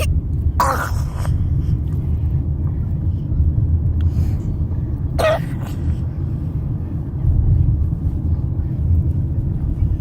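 Two short, harsh coughs, one about half a second in and one about halfway through, over a steady low rumble.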